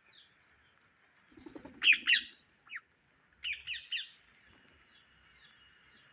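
Indian ringneck parakeet calling: two loud, sharp calls about two seconds in, a shorter single call just after, then a quick run of three calls about three and a half seconds in.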